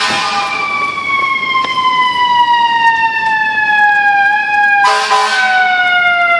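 Fire engine siren wailing, its pitch falling slowly and steadily, with a short blast of the air horns about five seconds in.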